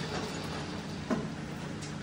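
Steady machine hum with one light click about a second in.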